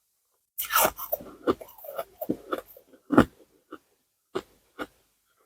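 Ice being bitten and chewed right at the microphone: a loud crunch about half a second in, a quick run of crunches over the next two and a half seconds, then a few single crunches spaced apart.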